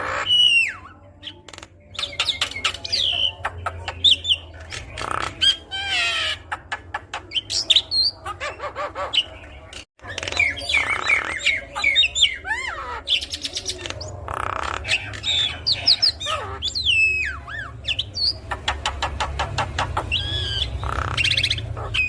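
Javan myna (jalak kebo) singing a busy, varied song: whistled up-and-down glides, harsh squawks and quick rattling runs of clicks, one phrase after another. The song breaks off for an instant about halfway through, then carries on.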